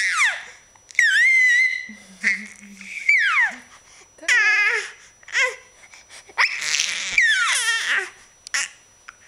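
Baby's high-pitched squeals and shrieks, about seven separate outbursts, the pitch sliding up and down within each.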